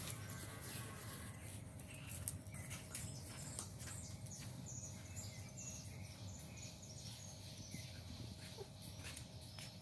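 Kittens wrestling on grass: soft, scattered rustling and patter of paws and bodies in the grass blades. Faint, short, high chirps repeat in the background about once a second.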